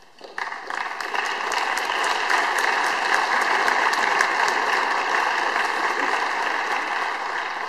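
Audience applauding: the clapping starts suddenly just after the start, holds steady, and begins to fade near the end.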